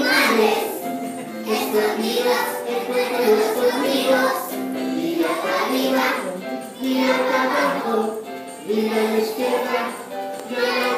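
A class of young children singing a Spanish song together in unison.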